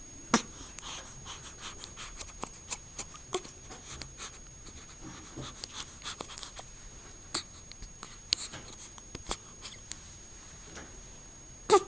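Light scratching and rustling dotted with many small clicks and taps, with one sharper click about half a second in.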